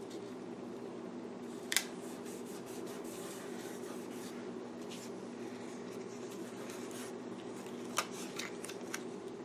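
Fingertip rubbing a paper sticker flat onto a planner page, a soft scratchy rubbing, over a steady low hum. Two sharp clicks stand out, about two seconds in and near the end.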